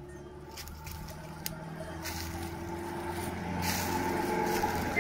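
A motor vehicle's engine running steadily and growing louder as it approaches.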